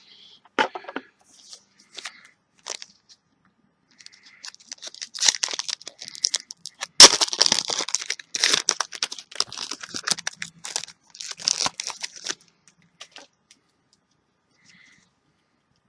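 A trading-card booster pack wrapper being torn open and crinkled by hand: a few scattered crackles, then several seconds of dense crinkling and tearing with a sharp snap about seven seconds in, dying away near the end.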